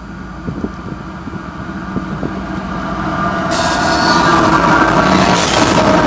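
A GE ES44AC diesel-electric locomotive leading a freight train approaches, its engine growing steadily louder. About three and a half seconds in, a sharp rise in wheel-and-rail noise joins the engine sound as the train draws near.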